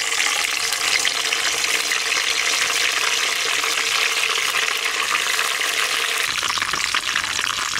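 Curry leaves frying in hot coconut oil: a steady sizzle.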